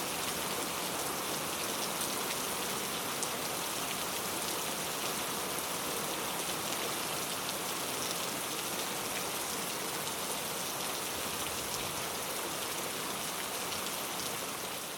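Steady rain falling, a dense even hiss with the fine patter of individual drops, beginning to fade out near the end.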